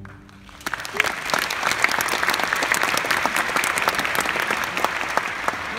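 Audience applauding: after a brief hush the clapping breaks out about half a second in and holds steady as a dense, even patter.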